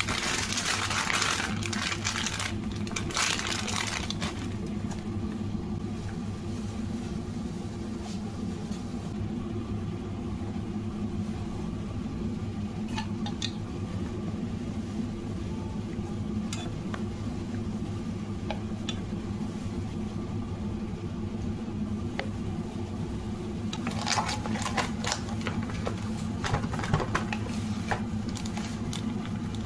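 A steady machine hum, like a fan or small motor running, with bursts of clattering handling noise in the first few seconds and again near the end, and a few light clicks in between.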